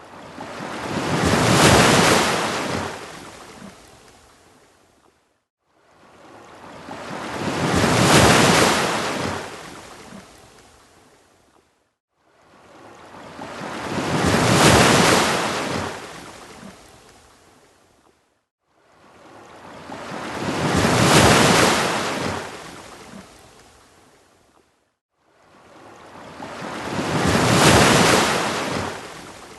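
Ocean waves breaking on a beach: five swells about six and a half seconds apart, each building to a loud crash and washing out, with a brief silence between them.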